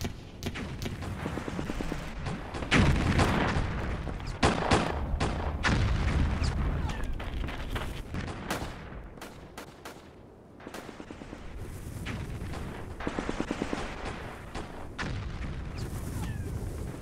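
Battle gunfire: automatic rifle fire in repeated bursts, with two louder blasts about three and four and a half seconds in and a quick run of rapid shots near the end.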